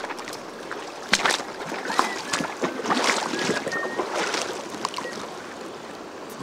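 Shallow river water splashing and sloshing in irregular bursts over a steady stream rush, as a freshly landed steelhead is handled in the water. The splashing is busiest in the middle and eases off near the end.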